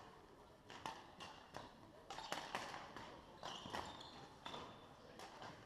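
Badminton rackets striking shuttlecocks in a rally: about ten sharp smacks at irregular half-second-to-second intervals, echoing in a large sports hall.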